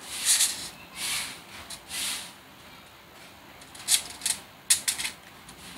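Hands working a plastic airsoft gun magazine: three soft rubbing, sliding sounds in the first two seconds, then several sharp plastic clicks from about four seconds in.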